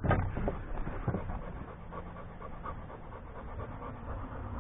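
Dog panting close by, with a loud bump right at the start.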